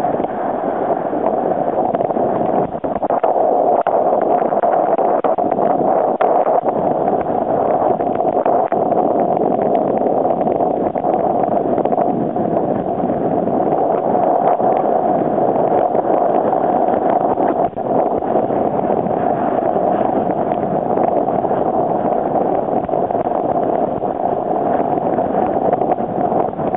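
Steady rushing of wind and water on an action camera carried by a kiteboarder riding fast across choppy water, with spray striking the camera.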